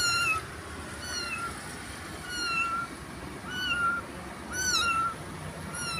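A ginger cat meowing over and over: six short, high-pitched cries, about one a second.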